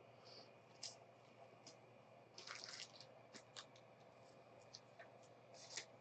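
Faint, scattered ticks and soft rustles of trading cards being handled and shuffled through, with a short run of rustling about two and a half seconds in.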